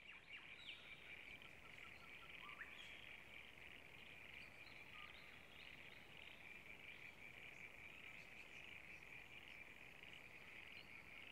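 Faint natural ambience: a steady high-pitched chorus of calling animals, with a few short bird chirps scattered through it.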